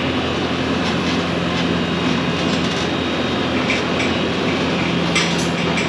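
Skid steer engine running steadily, with a couple of short metallic clanks about five seconds in.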